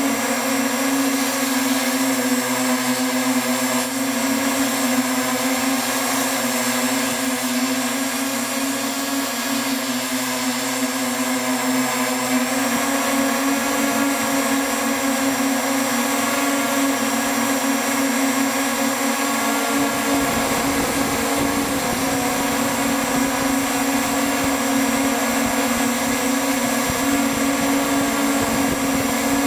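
Octocopter's eight electric motors and propellers humming steadily, heard from a camera mounted on the drone. A rough low rumble joins about twenty seconds in.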